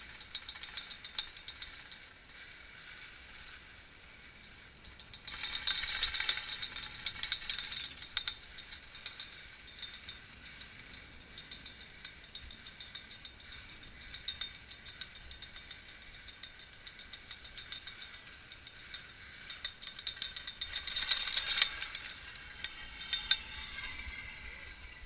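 1961 Hall T-bar ski lift running with a steady, rapid mechanical ticking and rattle. It swells into louder clatter twice, about five seconds in and again near the end.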